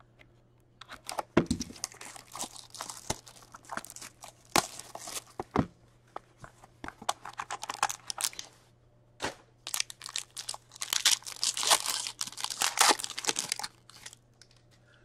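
Plastic wrap and a foil card-pack wrapper being torn open and crinkled by hand: irregular crackles, rips and clicks, densest and most continuous about ten to thirteen seconds in.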